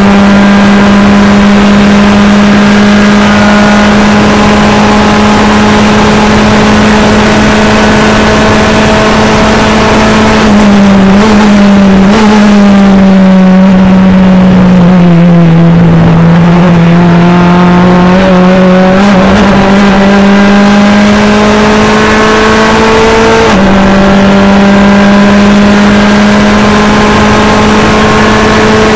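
Ligier NP01 prototype race car's engine heard from inside the cockpit, running hard at near-steady revs. Its pitch falls about 11 seconds in as the car slows, stays lower for several seconds, then climbs back, with an upshift about 23 seconds in.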